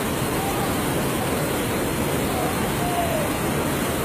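Flash-flood torrent of muddy water rushing down a street: a loud, unbroken rush of water. Faint distant voices call out briefly about half a second in and again near three seconds.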